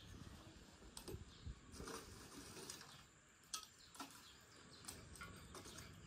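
Near silence broken by a few faint, scattered clicks and taps of a small wooden spoon against an enamel bowl and clay spice pots while ground spices are spooned out.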